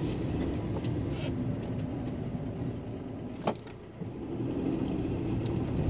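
Cabin noise of a small car being driven: a steady low rumble of engine and road noise heard from inside. A single sharp click sounds about three and a half seconds in.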